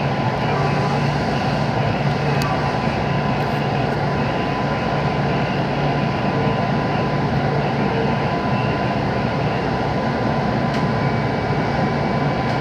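Inside a JR West 221 series electric train running along the track: a steady rumble of wheels and running gear with a faint constant whine.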